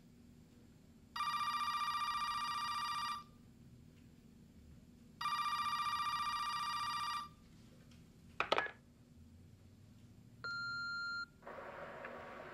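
Home telephone ringing twice, each ring about two seconds long. An answering machine then clicks on, gives one short beep, and the line hisses open for the caller's message.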